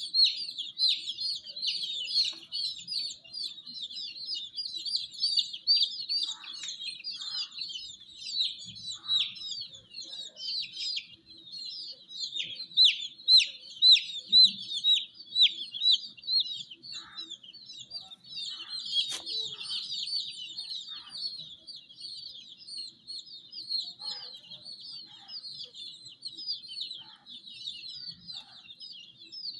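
A group of baby chicks peeping continuously: many short, high-pitched chirps overlapping without pause, growing louder for a few seconds around the middle.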